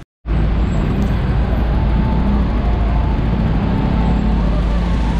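Steady street traffic noise with a deep low rumble, starting after a brief silent gap.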